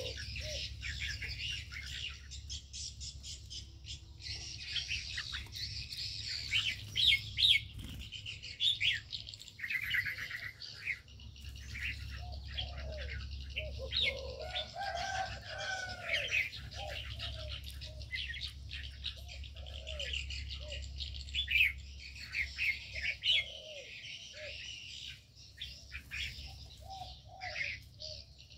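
Aviary birds chirping and calling: many quick high chirps and twitters, joined about halfway through by lower, rounded repeated calls. A steady low hum runs underneath.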